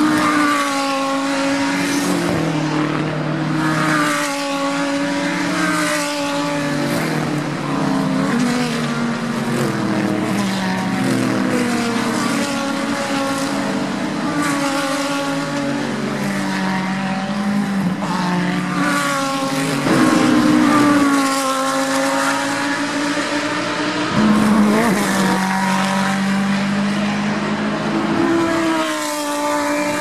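GT3 race cars passing one after another through a corner, with no gap between them. Their engines rise and fall in pitch with throttle and gear changes, loudest at about 20 and 24 seconds in.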